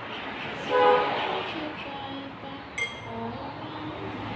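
A metal spoon clinks once against a ceramic mixing bowl of dumpling filling, sharp and ringing, a little under three seconds in. Just before a second in comes a brief high-pitched voice sound, the loudest moment, over a steady low background noise.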